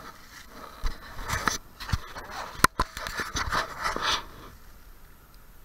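Footsteps crunching and rustling through dry fallen leaves and twigs, with a few sharp snaps. The sound starts about a second in and stops about four seconds in.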